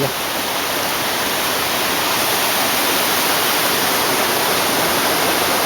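A river waterfall pouring steadily, a loud even rush of falling water.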